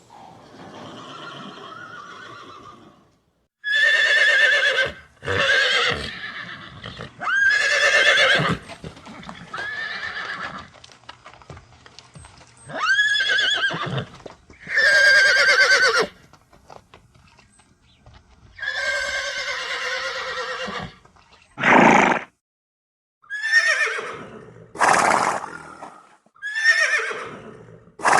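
Horses whinnying, about a dozen high calls one after another with short gaps, most of them falling in pitch.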